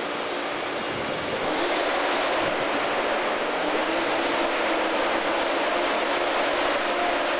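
Steady rushing noise with faint wavering hum tones in it, getting a little louder about a second and a half in.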